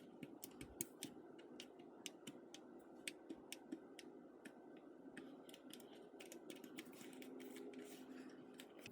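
Near silence with faint, irregular light clicks, a few a second.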